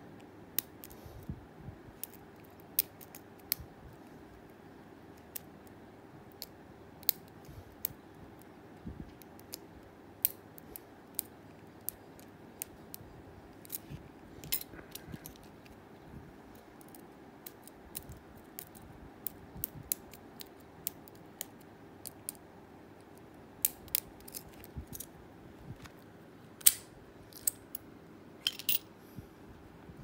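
Lock pick and tension wrench working the pins inside a Blossom 50mm padlock: small metallic clicks and scrapes at an irregular pace, with a few louder clicks near the end.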